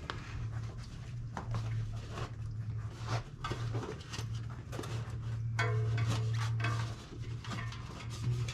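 Fat bike tire being worked onto the rim by hand: rubber scraping and squeaking against the rim, with small knocks and rattles, a longer squeak about six seconds in, over a low steady hum.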